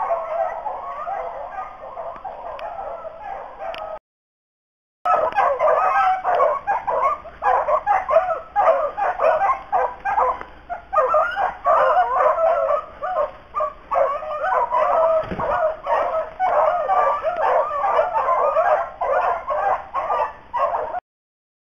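A pack of rabbit hounds baying in chorus on a rabbit's scent trail, many voices overlapping without a break. The sound cuts out completely for about a second a few seconds in and again near the end.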